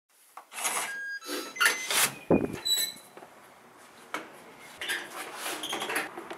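Electronic door lock being opened from inside: rattling handling noise with short electronic beeps, a single dull thump a little past two seconds as the latch and door go, another beep soon after, then scattered clicks and rustling as the door swings open.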